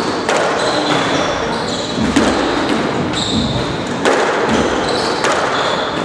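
Squash ball being rallied: sharp racket strikes and ball hits on the walls, roughly once a second, echoing in the enclosed court, with short high squeaks of court shoes between them.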